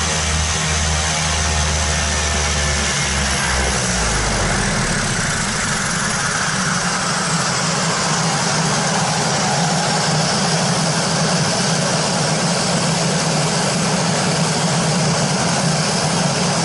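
Twin Pratt & Whitney PT6A turboprop engines of a Beechcraft King Air C90 running at ground idle, heard close up on the nose. A low, pulsing propeller beat gives way about four seconds in to a steadier rushing hum.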